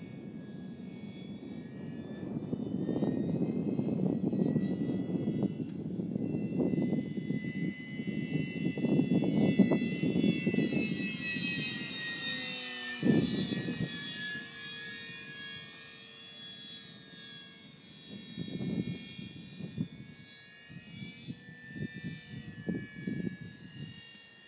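Electric Parkzone P-47 RC warbird's motor and propeller whining as it flies by, the pitch bending as it passes overhead about halfway through. Gusts of low rumble from wind on the microphone come and go underneath.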